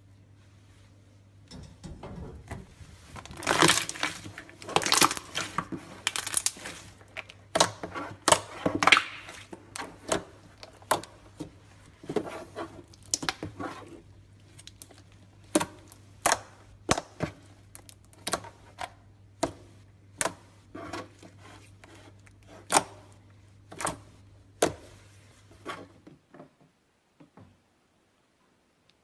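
Slime being squeezed and pressed by hand, with irregular sharp pops and clicks of trapped air, one to three a second and louder in a cluster a few seconds in. Over a low steady hum, until it all stops about 26 seconds in.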